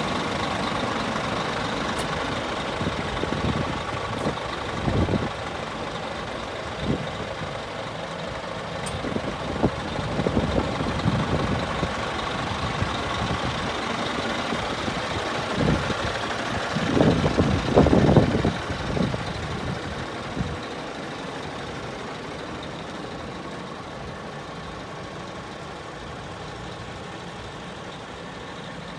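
Truck engine idling steadily, with irregular low rumbles over it that are loudest about two-thirds of the way through.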